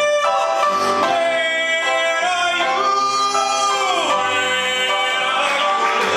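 A man singing a show tune into a handheld microphone, holding long notes, over grand piano accompaniment.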